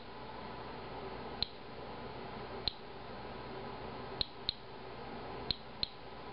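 Inspector Alert Geiger counter clicking at random intervals, six sharp clicks in about six seconds: each click is one detected radiation count, at a low rate of about one a second. A faint steady hiss underneath.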